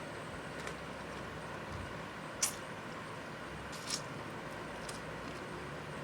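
Close-up eating sounds: a mouthful of salad being chewed, with a few short crisp crunches or mouth clicks, the loudest about two and a half seconds in and another near four seconds, over a steady background hiss.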